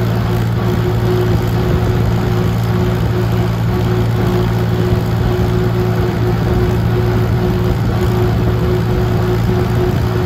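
Old tractor engine running steadily at an even speed, a constant engine drone with no change in pitch.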